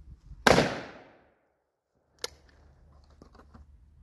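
A single shot from a Rossi S12 12-gauge single-shot shotgun about half a second in, loud and sharp, dying away within a second. It is followed by a sharp metallic click and then a few softer clicks as the action is broken open and the spent shell is taken out.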